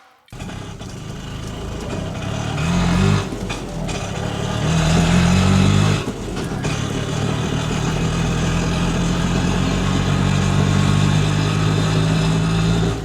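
A small motor running with a steady low drone. Its pitch rises briefly about three seconds in and again around five seconds in, then it dips and settles back to an even run.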